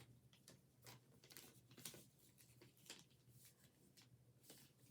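Faint, scattered rustles and soft taps of a sheet of paper being folded in half and creased by hand.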